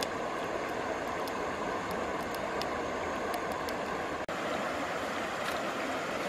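Steady rush of a shallow stream running over stones, with a few faint ticks through it; the sound drops out for an instant about four seconds in.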